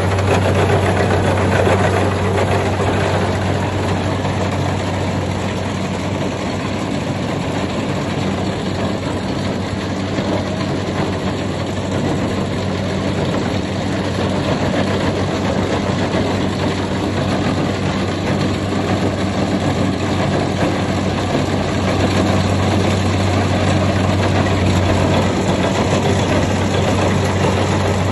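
Kubota combine harvester running steadily: a constant low diesel engine drone with a dense mechanical noise over it.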